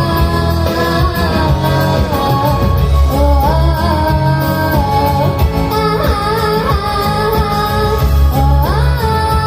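An eight-year-old girl singing a song in Russian over instrumental accompaniment, holding notes and gliding between them over a steady bass line.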